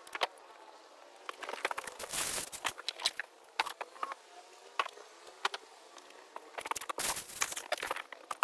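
Handling noise as boxed garden speakers and their packaging are unpacked and set down: scattered clicks and knocks, with two short rustling scrapes about two seconds in and again about seven seconds in.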